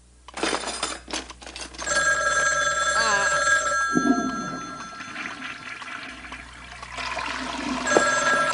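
Telephone bell ringing off-screen: one ring lasting about three seconds starts about two seconds in, and a second ring starts near the end. A few light clicks come in the first second.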